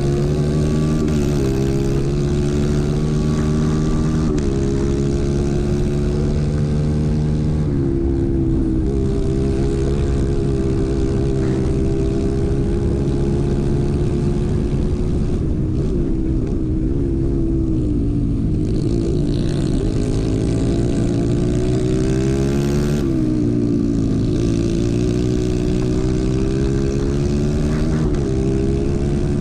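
Racing kart engine heard on board at racing speed, its pitch climbing steadily along the straights and dropping sharply several times as the driver lifts for corners. Under it runs a rough rumble from the tyres on the dirt track.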